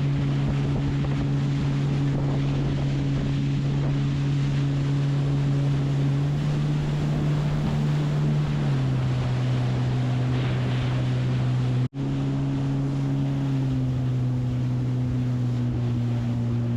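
Sea-Doo personal watercraft engine running at a steady cruise over wind noise on the microphone and water rushing; the engine note drops a step about halfway through and again near the end as it slows. The sound cuts out for an instant once.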